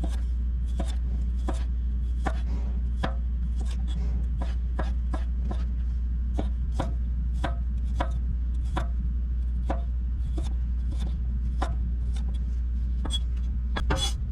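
Knife chopping garlic cloves on a cutting board: sharp, separate chops at an uneven pace of about two a second, over a steady low hum.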